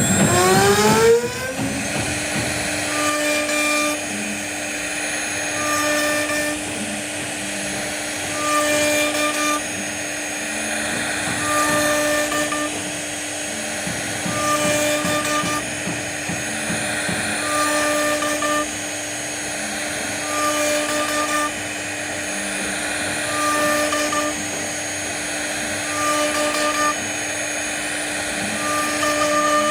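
CNC router spindle spinning up during the first second, then running at a steady whine while the bit cuts into wood. A higher whine from the machine's axis motors comes and goes about every three seconds as the head moves back and forth.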